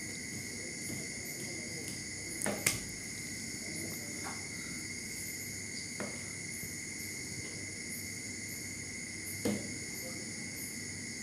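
A kitchen knife cutting raw chicken on a wooden chopping board, giving a few separate knocks about two, four, six and nine seconds in, the first the loudest. Underneath, crickets chirr steadily and high.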